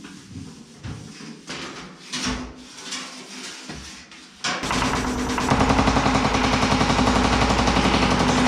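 Light scattered knocks, then about halfway through a power hammer starts up with a sudden loud, rapid, steady pounding on sheet steel.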